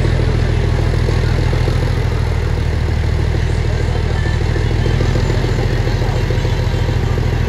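ZDM-4 narrow-gauge diesel locomotive's engine running steadily, heard from a coach window while the train stands stalled on the climb, unable to pull up the gradient.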